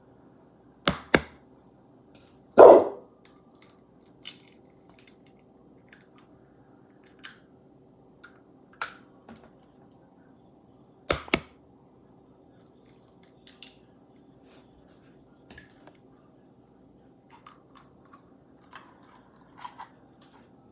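Kitchen handling sounds: scattered clicks and knocks of utensils and items being picked up and set down on the counter, including two quick double clicks and a louder thump about two and a half seconds in, over a faint steady hum.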